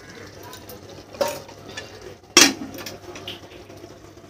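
Steel spoon stirring goat mutton and masala frying in an aluminium pressure cooker: scraping against the pot over a faint sizzle, with two sharp metal clanks, one about a second in and a louder one halfway through.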